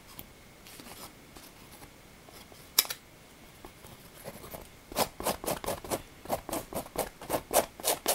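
Palette knife scraping and dabbing thick oil paint on canvas. The first few seconds hold only faint strokes and one sharp click, then from about five seconds in comes a quick run of short scrapes, about four a second.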